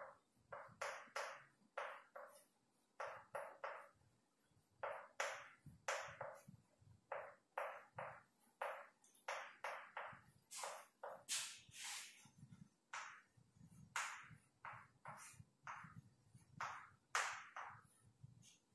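Chalk writing on a chalkboard: an irregular run of short scratching strokes and taps, about two a second, as a line of words is written out.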